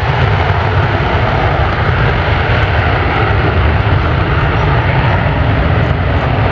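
Loud, steady roar of an F-15's twin jet engines in afterburner on the takeoff roll, with a deep rumble underneath.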